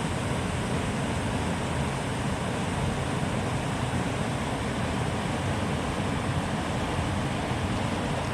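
Steady rushing wind buffeting the microphone, with water lapping and chopping.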